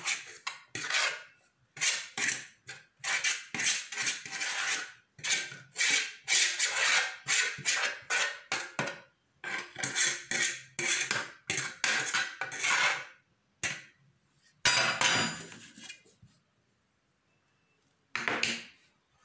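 A utensil scraping and knocking against a cooking pot in quick, repeated strokes as food is scooped out onto a wooden board to cool. The strokes stop about 13 seconds in; a single louder clatter follows a little later, and one more comes near the end.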